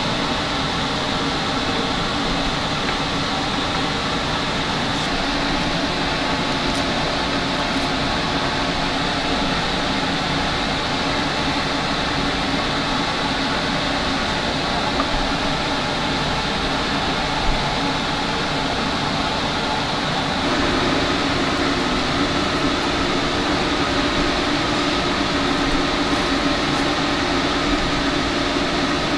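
Steady whirring drone of a ventilation fan, with a lower hum that grows louder about two-thirds of the way in.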